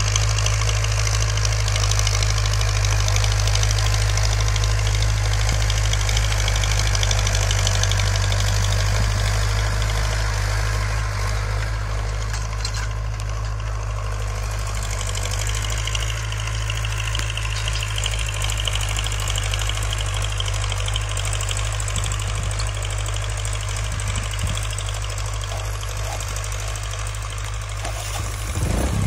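Farmtrac tractor's diesel engine running steadily under load while pulling a disc harrow.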